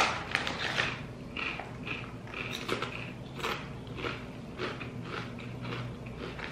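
Kettle-cooked potato chips being bitten and chewed: a run of irregular crisp crunches. A hand rustles the chip bag near the start.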